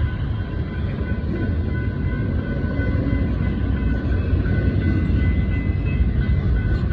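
Intermodal container well cars of a freight train rolling through a grade crossing with a steady low rumble, while the crossing signal's bell rings over it.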